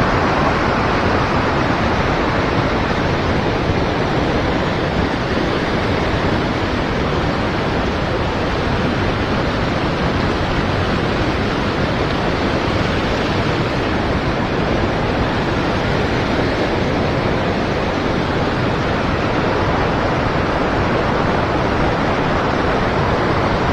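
Steady rush of river current flowing and splashing, loud and even throughout.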